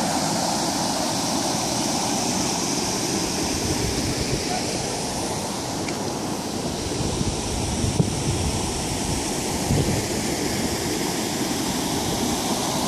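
Flooded river rushing over a low weir: a steady noise of white water. Two brief low bumps of wind on the microphone come about two-thirds of the way through.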